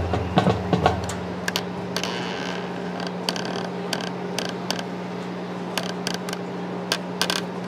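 Steady low hum with scattered sharp clicks and knocks, and a brief high ringing about two seconds in.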